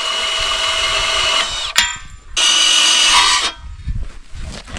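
Power drill running in two runs: the first whines steadily for about a second and a half and drops in pitch as it stops. A sharp click follows, then a second run of about a second near the middle, and a few low knocks after it.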